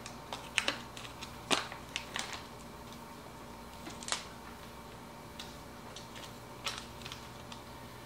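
A can of ground coffee being opened by hand: a run of sharp plastic clicks and snaps as the lid is worked off, the loudest about a second and a half in, then a few scattered light ticks.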